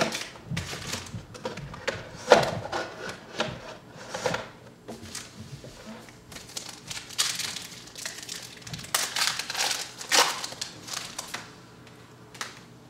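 Wrapped trading-card packs rustling and crinkling as they are handled and torn open, in irregular bursts that die down near the end.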